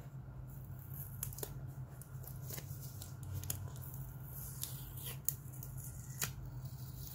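Hands handling a cardboard watch box and working at its torn paper seal label: scattered light clicks and rustles over a steady low hum.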